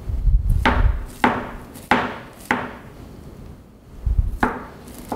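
Chef's knife rough-chopping cauliflower florets on a cutting board: four quick knife strikes about half a second apart, a pause, then another chop near the end.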